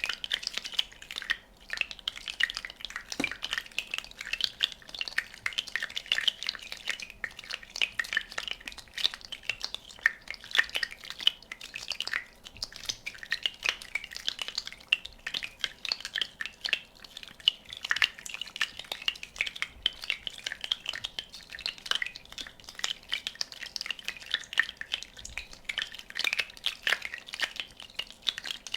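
Bubbles popping: a dense, steady crackle of many tiny pops, with water drops.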